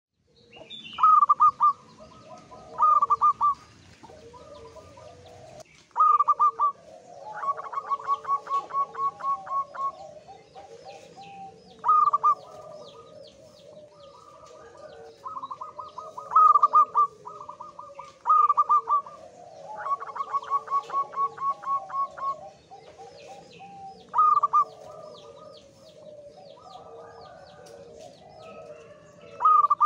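Male zebra dove (perkutut) in high breeding condition singing its staccato cooing song. Every few seconds comes a short, loud burst of notes, and several of these run on into a long string of quicker, softer coos at about four a second.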